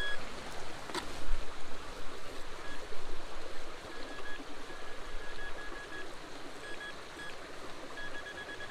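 A metal detector giving short high beeps in quick runs as it is worked over a shallow target, over a steady rush of running water. A single sharp click about a second in.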